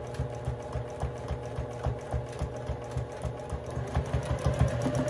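Home sewing machine stitching free-motion quilting through a quilt, the needle making a fast, even run of strokes. It speeds up and gets louder near the end.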